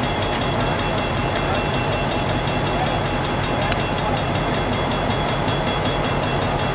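Diesel freight locomotive idling: a steady engine drone with a fast, even ticking, about six or seven strokes a second.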